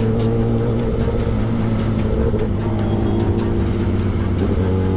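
Kawasaki sport bike's engine running steadily at road speed under a rush of wind noise, its pitch rising briefly near the end as it picks up speed.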